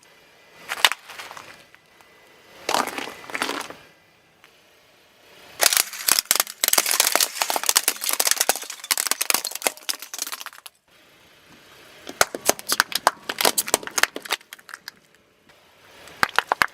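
Crunchy objects being crushed under a car tyre: several bursts of rapid cracking and snapping, with the longest and densest lasting about five seconds in the middle.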